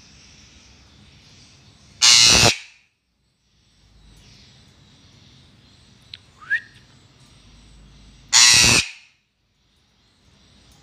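Female Eclectus parrot giving two loud, harsh screeches about six seconds apart, each lasting about half a second. A short, quieter rising whistle comes between them.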